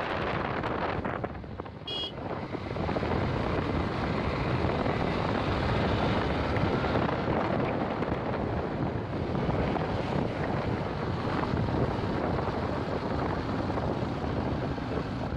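Wind rushing over the microphone of a moving vehicle, a steady noise with the vehicle's running underneath. A short high beep comes about two seconds in.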